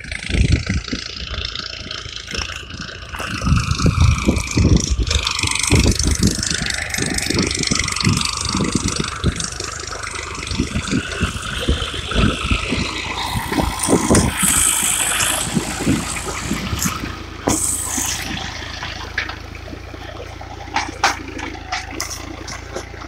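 New Holland Ghazi tractor's diesel engine running under load as it drags a tine cultivator through dry, cloddy soil, with the implement rattling. Irregular heavy low thumps over the first half, easing into a steadier hum near the end.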